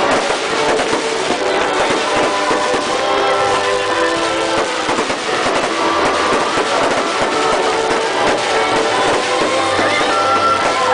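Music playing loudly over the dense bangs and crackle of a fireworks display.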